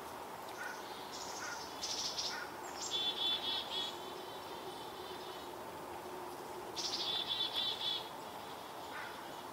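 Chickadee scolding with chick-a-dee calls: twice, about two seconds in and again about seven seconds in, a couple of high introductory notes run into a string of buzzy dee notes. Faint short chip notes come in between.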